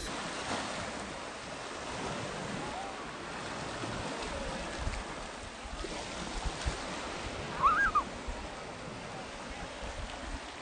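Small waves washing steadily onto a sandy shore. About eight seconds in comes a short, high-pitched cry.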